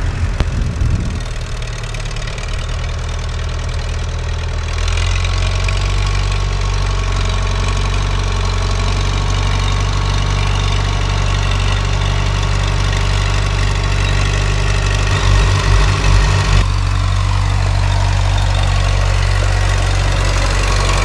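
Leyland 384 tractor's three-cylinder diesel engine running steadily, growing louder about five seconds in. A short run of low thumps comes about fifteen seconds in.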